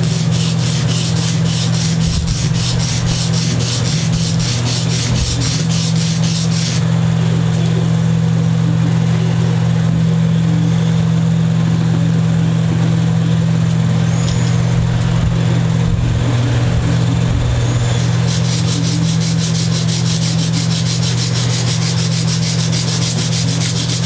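Hand sanding with a sanding block to take material off, in quick, even back-and-forth strokes: one spell of about seven seconds, a pause, then sanding again from about eighteen seconds in. A loud, steady low hum runs underneath throughout.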